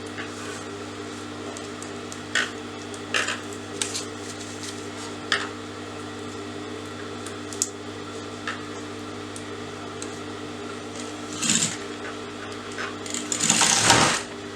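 Electric sewing machine running steadily, stitching a seam, with a few light clicks along the way and a louder burst of noise near the end.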